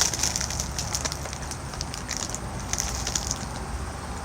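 Doritos Flamin' Hot Nacho tortilla chips crunching as they are eaten, a run of quick, irregular crackles that thin out near the end.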